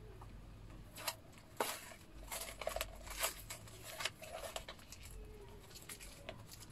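Irregular crinkling and rustling as a rolled skateboard grip tape package is picked at and opened by hand, with scattered small clicks and scrapes of handling.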